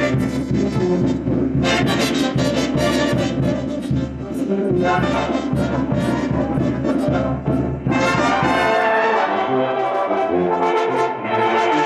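Mexican brass banda playing live: sousaphone, trumpets and trombones over a steady rhythmic beat. About nine seconds in the deep bass drops out and the horns carry on in stepped notes.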